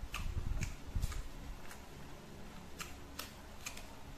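A person chewing food close to the microphone. Soft low thumps come in the first second, and a string of short, sharp wet mouth clicks runs through the rest.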